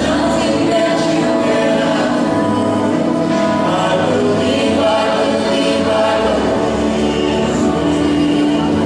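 Mixed choir of women's and men's voices singing in harmony, holding long sustained chords.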